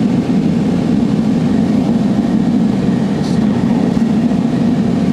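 Steady roar of a torch flame heating the body of a steel chisel for tempering. A short faint hiss comes about three seconds in.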